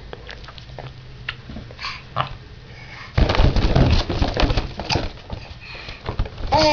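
Rubber balloons being handled and knocked about by a baby: a dense rubbery rustle with many clicks for about two seconds in the middle, scattered light taps before it, and a short baby vocalization at the very end.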